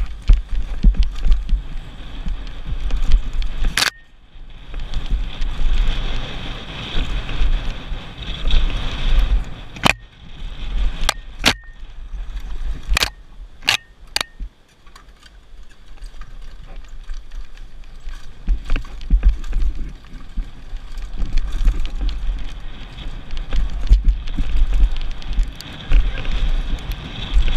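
Mountain bike riding fast down rocky dirt singletrack, heard from a helmet camera: wind buffeting the microphone, tyres rumbling over rock and the bike rattling. There are sharp knocks from the bike several times, once about 4 s in and a cluster of them between about 10 and 14 s in.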